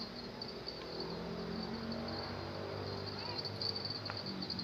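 Insects chirring steadily in a continuous high-pitched, pulsing drone, with a low steady hum underneath.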